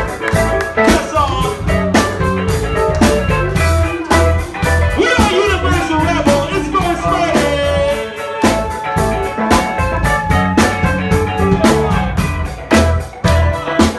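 Live band music: drum kit, congas and guitar over a steady run of sharp percussive hits, with a voice singing for a few seconds in the middle.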